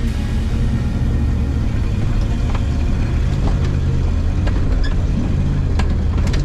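Ford Bronco's engine running steadily under load as it crawls up a steep slickrock ledge, heard from inside the cab, with a few scattered sharp clicks.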